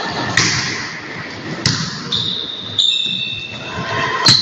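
A volleyball being struck by hands four times in a gym rally, sharp slaps about a second apart, the last the loudest. There are short high squeaks between and after them.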